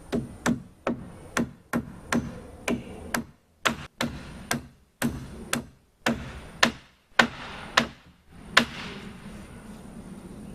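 Hammer driving nails into wooden wall studs with steady blows, about two a second, for some eight seconds before stopping.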